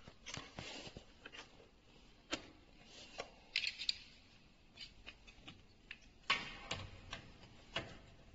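Faint, scattered clicks and knocks of hard plastic being handled: the jumper cable's connector being plugged into a portable jump starter, with a quick run of clicks a little before four seconds, and the red battery clamp being handled. The loudest pair of knocks comes a little after six seconds.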